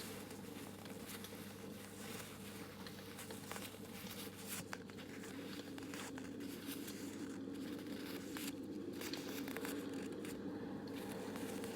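Close-miked ASMR crinkling and crackling: many small, fine clicks over a steady low background noise.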